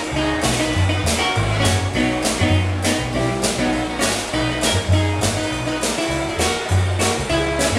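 Upbeat music with a steady drum beat, bass line and guitar.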